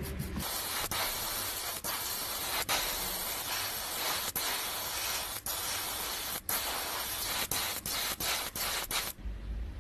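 Small gravity-feed spray gun hissing as it sprays paint, in spurts broken by many brief pauses; the hiss starts about half a second in and stops about nine seconds in.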